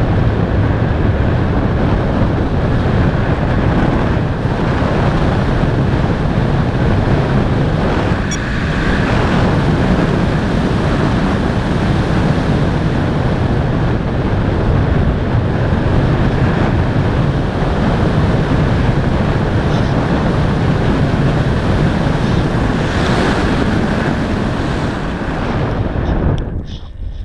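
Loud, steady wind noise buffeting the microphone, easing briefly near the end.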